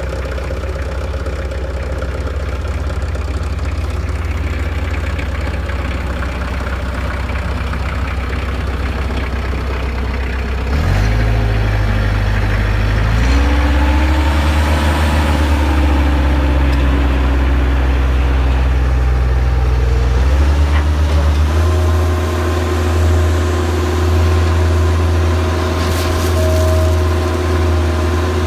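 Bobcat 753 skid steer loader's diesel engine running. It idles steadily at first, then about a third of the way in the note changes and gets louder, shifting pitch a few more times, with a steady higher whine over the last third.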